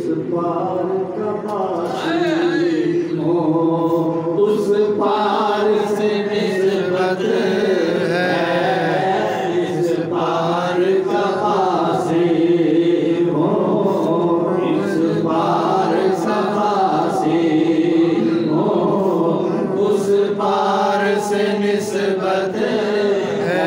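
A man singing a naat, an Islamic devotional poem, into a microphone in long, held, chant-like melodic phrases.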